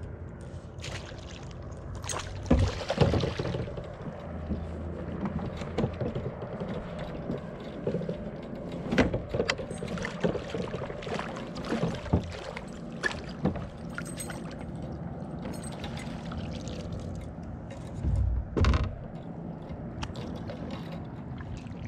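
Fighting and landing a fish from a plastic fishing kayak: the fishing reel cranking, with knocks and bumps against the hull and splashing water. The loudest knocks and splashes come about two and a half seconds in and again near the end.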